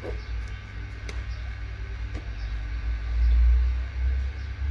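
Hot-air heat gun blowing: a steady motor hum and rush of air with a low rumble that swells for a moment about three seconds in, as it heats the edge of a phone's glass back panel to soften the adhesive.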